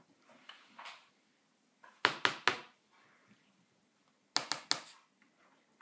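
Two quick runs of sharp knocks or clicks on a hard surface, three or four in a row each time, about two seconds apart.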